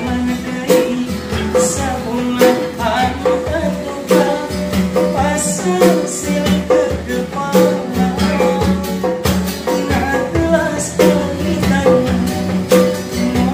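A man singing while strumming an acoustic guitar, backed by a steady rhythm of hand drumming on a djembe.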